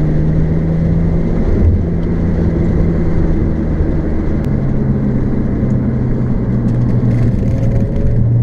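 Car engine and road noise heard inside a moving car's cabin, the engine's steady hum stepping down in pitch about halfway through.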